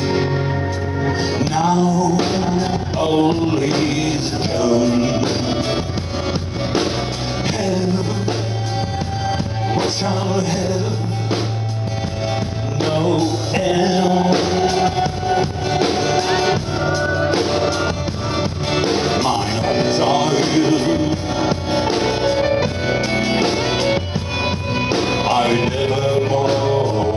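Live rock band: a man sings lead over strummed acoustic guitar, electric guitars and a steady bass line. The voice comes in about a second and a half in.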